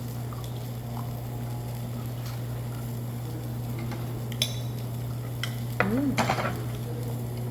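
Meat sizzling on a tabletop barbecue grill over a steady low hum, with a few sharp clicks of utensils about four and a half to six seconds in and a short vocal sound at about six seconds.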